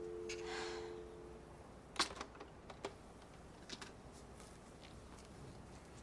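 Telephone line tone of two steady pitches sounding from the handset after the other party has hung up, fading out about a second and a half in. About two seconds in, a sharp click as the handset is set down, followed by a few lighter clicks and knocks.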